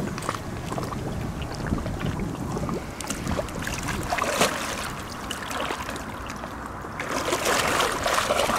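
Lake water sloshing and splashing around an angler's legs and hands as a mirror carp is lowered back in and released. A burst of splashing about seven seconds in as the fish kicks away, over a steady low rumble of wind on the microphone.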